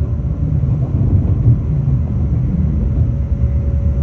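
Steady low rumble of a Shinkansen bullet train in motion, heard from inside the passenger car, with a faint steady hum above it.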